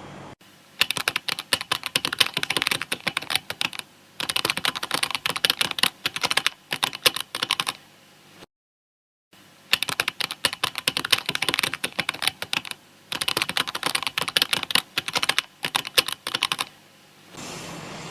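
Typing on a computer keyboard: rapid keystroke clicks in runs of two to three seconds with short pauses between, and a brief dead silence about halfway through.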